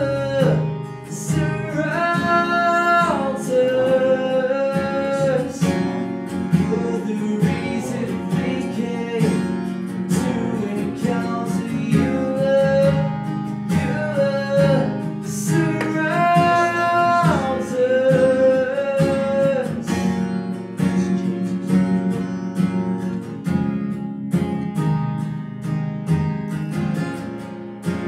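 A man singing a worship song while strumming an acoustic guitar, his voice holding long notes at the ends of phrases. In the last several seconds the singing drops away, leaving the strummed guitar.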